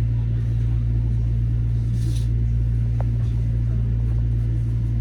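Steady low hum inside a Metro-North M7A electric railcar standing at a station, with a short hiss about two seconds in and a single click about a second later.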